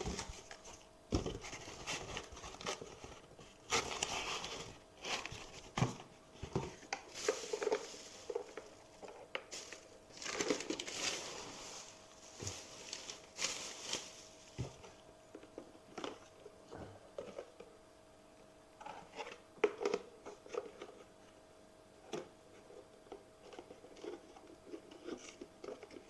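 Plastic packaging crinkling and cardboard rustling as hands rummage through a box, in repeated bursts during the first half; later, scattered light clicks and taps as the plastic exhaust-fan housing is handled.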